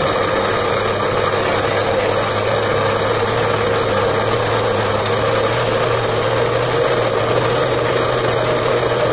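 Countertop glass-jar blender motor running steadily at one constant speed, blending a thick mixture of pinto beans, carrots and chopped vegetables.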